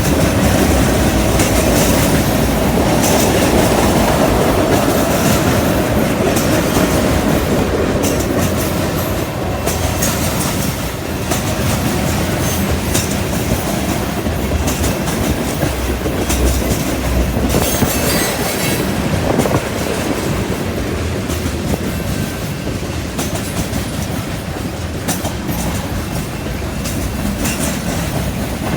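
Freight train rolling past, its steel wheels clicking rhythmically over the rails and the junction switch. A faint wheel squeal sounds in the first few seconds.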